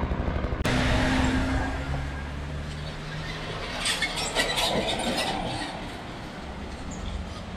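Road traffic: a motor vehicle's engine humming close by for the first few seconds, then fading into general traffic noise, with a brief rattle about four seconds in.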